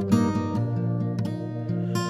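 Music: an acoustic guitar strumming chords.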